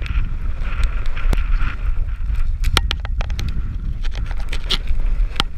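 Wind buffeting an action camera's microphone, a steady low rumble, with a run of sharp clicks and crunches through the second half.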